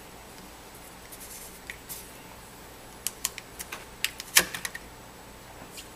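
Small metal LED flashlights being handled and switched off: a run of small sharp clicks and taps, with one louder knock about halfway through.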